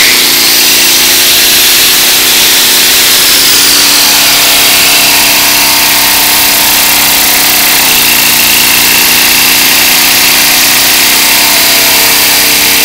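A 4.5-inch electric angle grinder running steadily at free speed, with its high whine, on power from a 1959 Borg-Warner Zeus 1.25 kW generator. The generator's 3 hp Briggs & Stratton vertical-shaft engine runs steadily under the load beneath it.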